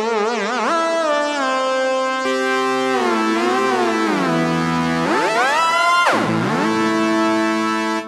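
SynthMaster software synthesizer playing a vintage-style synth lead preset: a held melody with wide vibrato, a lower note joining about two seconds in. Near the end the pitch swoops deep down and back up twice.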